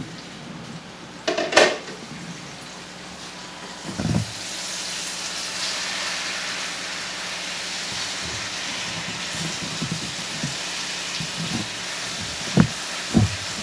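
Food frying in hot oil in a skillet: a steady sizzle that sets in about four seconds in, after a knock, with a short clatter of cookware early on and a few knocks near the end.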